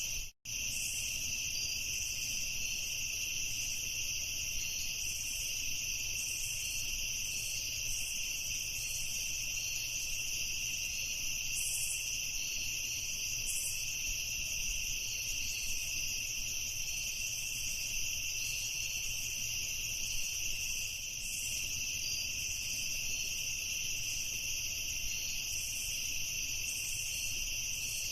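A chorus of crickets chirping steadily, two high pitches layered on each other, with a momentary cut to silence about half a second in.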